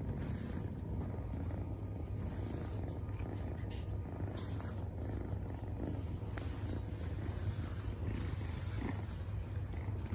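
Domestic cat purring steadily close to the microphone, a continuous low rumble.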